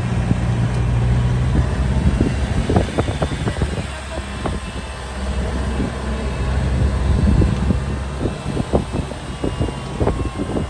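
Safari jeep engine running while driving, with frequent short knocks and rattles.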